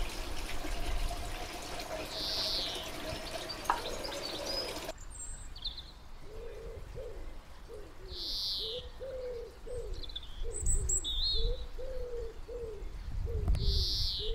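Garden birds chirping. From about five seconds in, a pigeon coos in a long run of low, repeated notes.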